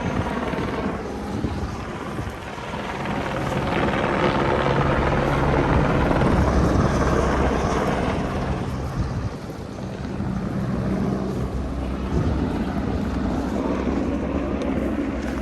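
Helicopter coming in to land, its rotor and engine running with a steady low hum that grows louder a few seconds in, peaks, and eases off briefly around the middle.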